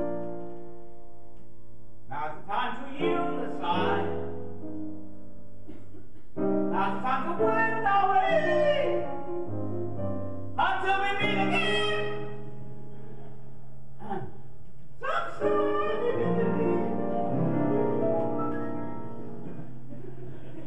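Grand piano playing slow, sustained chords, with a voice singing over it in long phrases with vibrato and short breaks between them.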